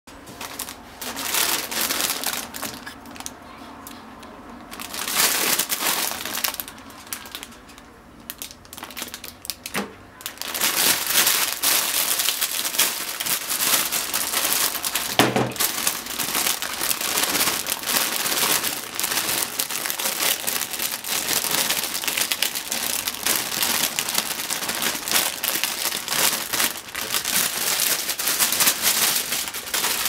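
Crinkling of a thin plastic bag of bunashimeji mushrooms being handled: two short bursts at first, then nearly continuous crinkling from about ten seconds in as the mushrooms are shaken out of the bag into a colander.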